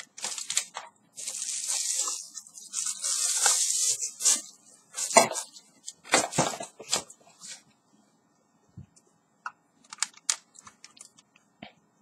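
Packaging rustling and crackling for the first few seconds, then plastic knocks and clicks as the handheld car vacuum's plastic body is lifted and handled, with a few lighter clicks near the end. The vacuum's motor is not running.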